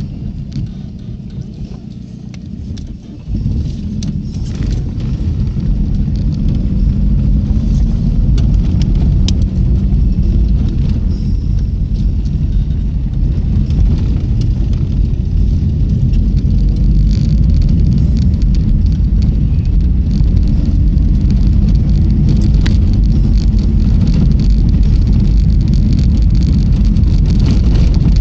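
Car driving, heard from inside the cabin: a steady low rumble of engine and road with tyre noise and small rattling clicks. It grows louder after about three seconds as the car picks up speed.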